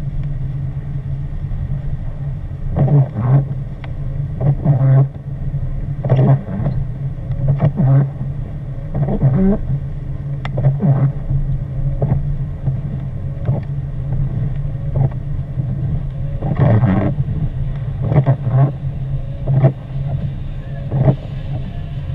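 Inside a car driving on a wet road in rain and sleet: a steady low road and engine hum, with a short sweeping stroke repeating about every second and a half.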